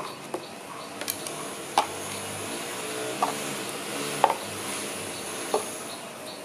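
Light clicks and taps as a small plastic charger and its cord are handled and wound up by hand, about six sharp ones spread over the few seconds, over a faint steady background hum.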